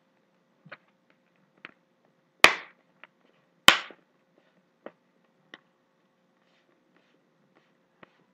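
Plastic screen bezel of a ThinkPad Edge 13 laptop being pressed and snapped into place on the lid. Two loud, sharp snaps come a little over a second apart near the middle, with lighter clicks of plastic before and after.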